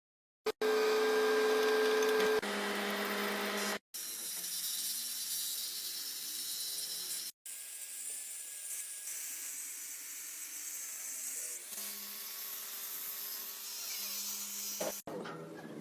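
A power tool running with a steady whine over a hiss, cutting off abruptly and starting again three times.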